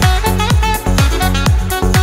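Background music with a steady electronic drum beat, a little over two beats a second, and a melody over it.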